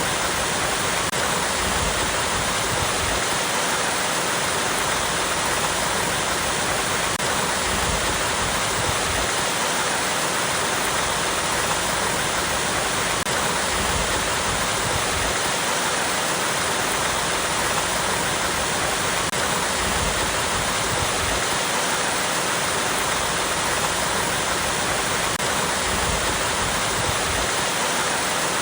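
Small waterfall cascading over rocks: a steady, unbroken rush of falling and flowing water.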